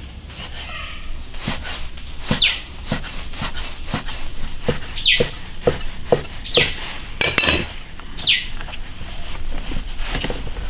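Cleaver chopping rolled noodle dough against a thick wooden chopping block, steady knocks about twice a second. Four short, high whistles falling in pitch sound over the chopping.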